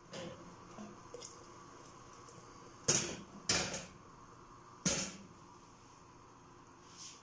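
Tomato-and-spice broth boiling hard in an aluminium pot: a faint steady bubbling, broken by three loud short bursts about three, three and a half and five seconds in.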